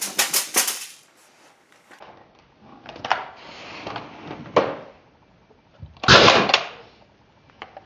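A quick run of sharp clicks at the start, then a single loud gunshot bang about six seconds in as a pistol is fired held to the mouth.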